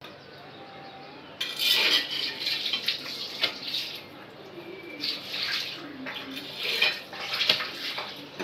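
Kitchen clatter: dishes or pans being handled with splashing water, in irregular bursts with a few sharp clinks.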